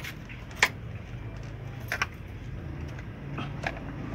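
Plastic steering column shroud and switch housing being worked loose by hand, giving a few sharp clicks and knocks over a low steady hum.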